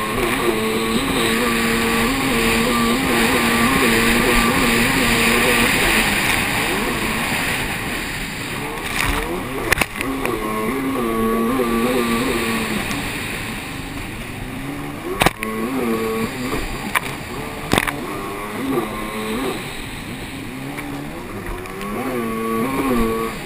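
Racing jet ski engine running hard, its pitch stepping up and down again and again as the throttle is worked, over a rush of wind and spray. A few sharp knocks cut through, about ten, fifteen and eighteen seconds in.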